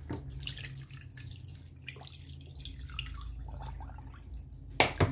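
Water pouring from a plastic bottle into an enamel pot, a steady stream splashing into the water already in it. A couple of sharp knocks near the end.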